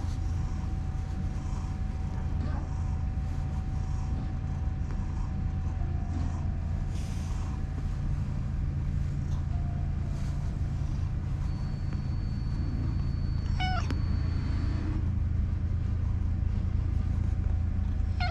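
Domestic cat purring steadily while being stroked, with a short high meow about thirteen and a half seconds in and another right at the end.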